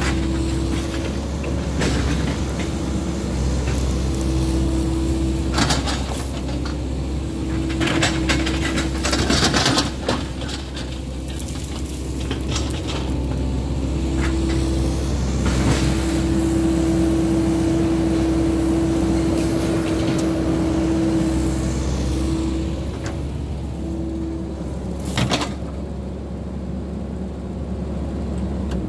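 Cat 308E CR mini excavator working: its diesel engine runs steadily under a hydraulic whine that comes and goes as the boom and bucket move, with occasional sharp clanks and knocks as the bucket works among brush.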